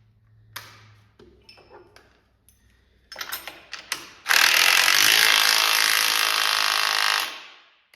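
A few clicks and knocks as a tool is fitted, then about halfway through a power tool runs hard for about three seconds and stops, driving the nut tight on a snow bike ski's spindle bolt.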